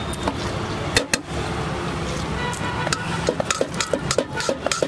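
Steady street-traffic background noise, with a quick run of metallic clicks and clinks in the second half: a spoon striking a stainless steel bowl while tossing shredded cabbage.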